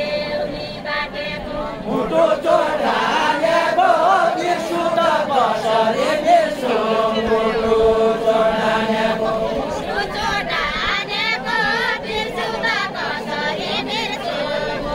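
Group of voices singing a Deuda folk song together, with long, drawn-out notes that waver and bend.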